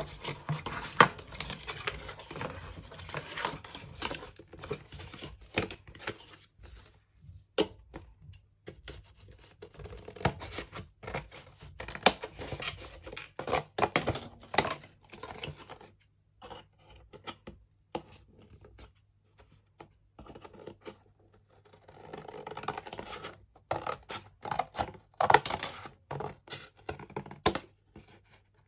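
Paper and cardboard being handled by hand: irregular scraping and rustling with sharp taps and knocks, coming in bursts, with a quieter stretch in the middle.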